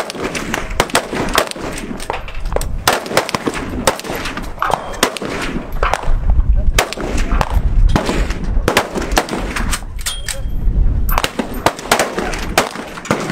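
Gunfire from many shooters on a firing line at once: sharp, irregular shots, sometimes several a second and overlapping, none in any steady rhythm.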